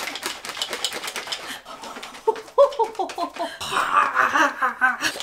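A plastic protein shaker bottle with soy milk inside, shaken hard, giving a fast run of rattling strokes for about two seconds. Then two women laugh and shout excitedly, with one high squeal.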